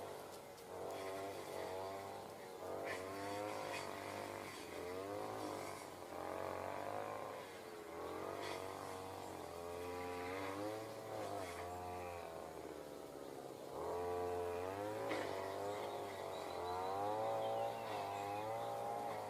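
A motor's drone whose pitch wavers up and down every second or two, over a steady low hum.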